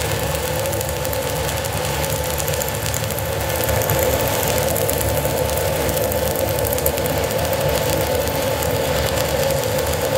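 Stick-welding arc crackling steadily as a 6010 electrode burns at about 85 amps.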